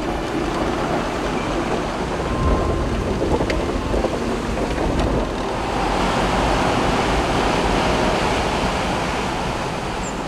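Steady rushing of a rocky mountain stream, loudest about six to eight seconds in.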